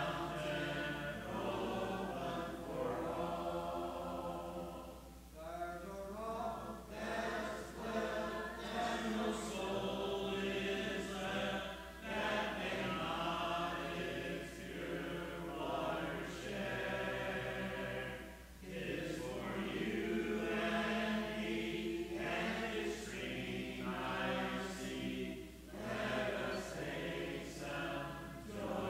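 Church congregation singing the invitation hymn a cappella, many voices together with no instruments, in long phrases with brief dips between lines.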